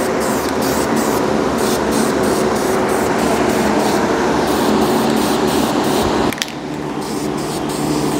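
Spray paint hissing steadily from an aerosol can as a colour coat goes on, cutting off abruptly about six seconds in. A steady low hum runs underneath.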